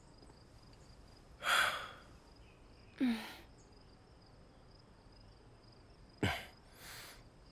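Four short breathy vocal sounds, gasps or sighs, one with a brief falling voiced tail, over a faint steady chirring of crickets.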